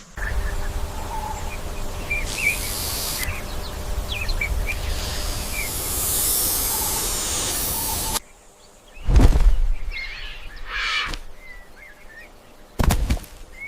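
Small birds chirping over a steady rushing outdoor noise. The noise cuts off suddenly about eight seconds in. Two loud, low, short bursts follow, one about a second later and one near the end, with more chirps between them.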